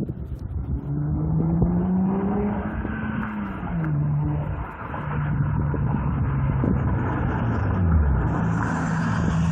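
E36 BMW M3 straight-six running through a UUC exhaust with custom headers. The engine note climbs under acceleration, drops at about four seconds as at a gear change, holds steady, then falls again near eight seconds and settles.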